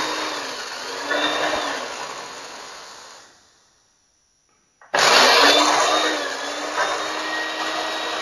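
Small electric mixer-grinder running with roasted dry coconut in its small jar, in pulses. The motor slows about half a second in, picks up again, and fades away. After a short silence it starts abruptly and runs at full speed again.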